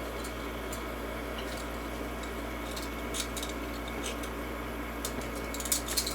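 Metal handcuffs being handled, with scattered light clicks and small rattles about a second apart and a few quicker clicks near the end.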